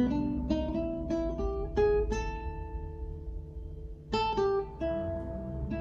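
Acoustic guitar played finger-style: a run of single plucked notes in the first two seconds, one left to ring and fade, then a quick cluster of notes about four seconds in that rings on.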